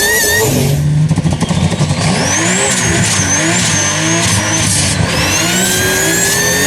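Car engine revving hard, its pitch climbing again and again in steps as if shifting up through the gears, with a little tyre squeal.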